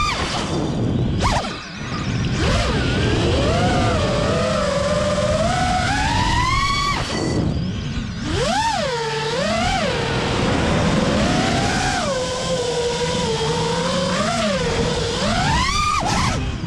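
FPV quadcopter's electric motors whining, the pitch rising and falling with the throttle. The whine drops away briefly twice, about a second and a half in and again about halfway, then swoops back up in quick surges.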